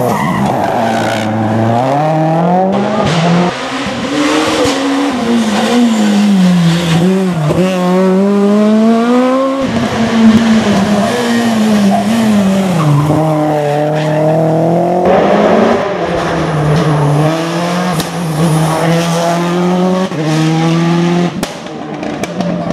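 Rally cars at full throttle on a special stage, engines revving up and falling back through gear changes. The sound changes abruptly a few times as one car gives way to the next.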